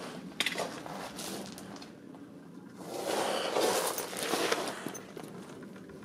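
Footsteps scuffing over a gravel and rock cave floor, louder for a stretch about three seconds in.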